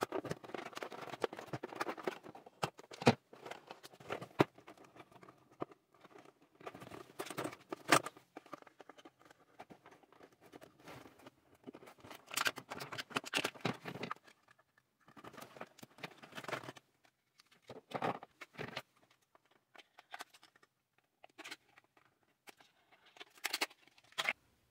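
Doll packaging being handled and opened by hand: irregular rustling and scraping in spells, with a few sharp clicks, the loudest about three and eight seconds in.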